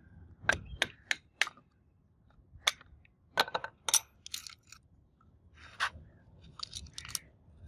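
Four quick sharp taps on a rusty angle grinder's plastic motor housing, struck with a wooden-handled tool to free it from the seized armature. They are followed by scattered clinks, knocks and short scrapes as the housing is worked loose and pulled off the armature.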